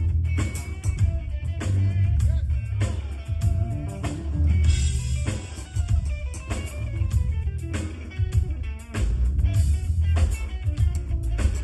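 A live rock band playing at a sound check: guitar over a drum kit, with heavy bass and a steady beat.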